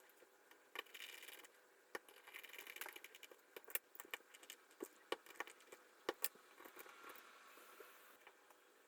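Small 3D-printed plastic parts and screws being handled and fitted together: irregular sharp clicks and taps with short stretches of scraping.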